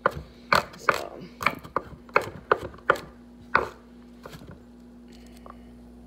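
Chef's knife chopping vegetables on a wooden cutting board: about ten quick, uneven knocks that stop about three and a half seconds in. A steady low hum runs underneath.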